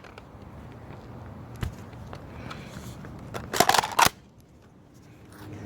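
Nerf foam-dart blasters being fired and handled: a single sharp click about a second and a half in, then a loud quick cluster of several snaps and knocks around three and a half to four seconds in.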